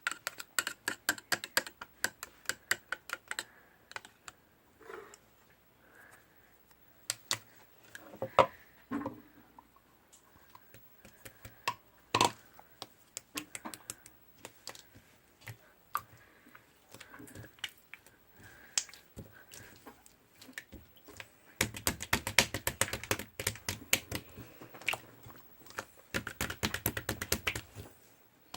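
Slime being squished and pressed by hand, giving many sharp little clicks and pops as trapped air bursts. The clicks are scattered at first, then come in a fast, dense run for the last several seconds.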